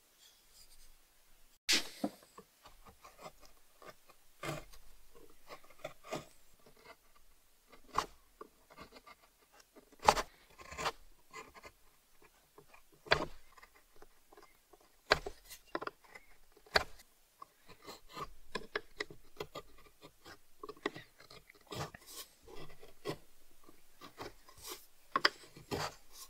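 Small hand-handled parts clicking and knocking at irregular intervals, with soft rubbing and scraping between the knocks and a few sharper knocks standing out.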